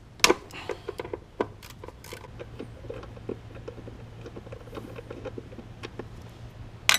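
Hand tools clinking against metal in a car's engine bay: a sharp clank just after the start, a run of light, irregular clicks through the middle, and another sharp clank near the end.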